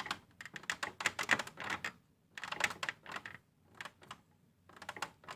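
Irregular clusters of small plastic clicks and scrapes as a DDR3 memory stick is pressed into a motherboard's memory slot and its retention clips are worked.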